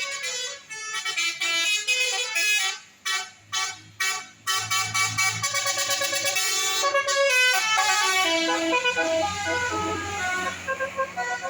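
Bus telolet horn, a multi-tone musical air horn, playing a stepping melody: short choppy toots at first, then longer held notes, over the low hum of the bus's engine.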